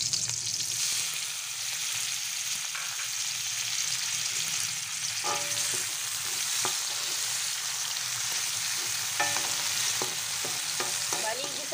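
Garlic, onion and diced tomato sizzling in hot oil in a pan as they are stirred with a spatula, with a few short knocks and scrapes of the spatula on the pan from about five seconds in.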